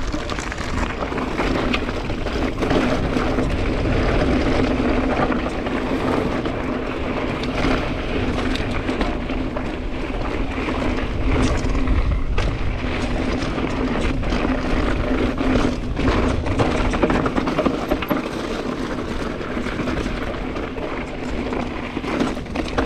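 Pivot Trail 429 mountain bike descending a fast, rocky trail: a continuous rush of tyres over dirt and rock with air noise, broken by many sharp clacks and knocks from the bike over the rough ground, and a steady low buzz underneath.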